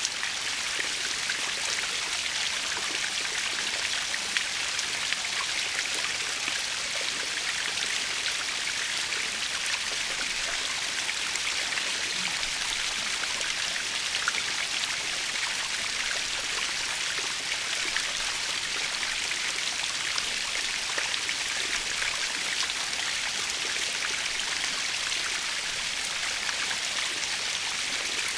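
Natural waterfall: a steady, even rush of falling water, mostly hiss, with fine splashing ticks of droplets through it.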